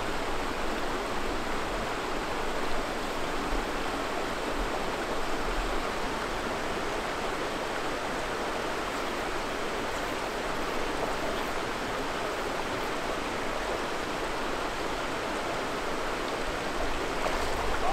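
Steady rushing of a small river's flowing water, even and unbroken.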